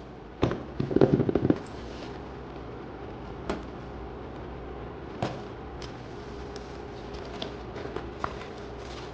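Parcel packaging being handled and opened: a quick flurry of crinkling and crackling about half a second in, then scattered sharp clicks and crackles.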